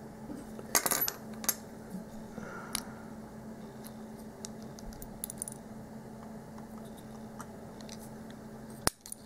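Small metal padlock parts, pins and springs, clinking onto a hard surface as the lock is taken apart. A quick cluster of clinks comes about a second in, the loudest sound here, followed by a few lighter clicks and ticks.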